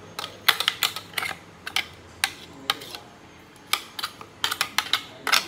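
Kitchen utensils and containers clicking and knocking irregularly, some in quick clusters, as blended pandan leaves are handled for straining.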